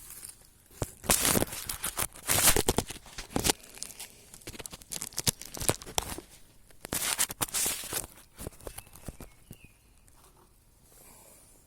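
Leaves and twigs of a lemon tree rustling and crackling in irregular bursts as the branches are handled to pick lemons. The bursts come in two spells, then die down near the end.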